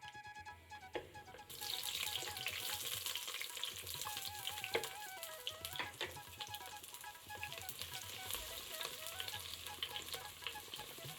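Food frying in a pan: a steady sizzle that starts about a second and a half in, with a few sharp knocks. Soft background music with a wavering melody plays under it.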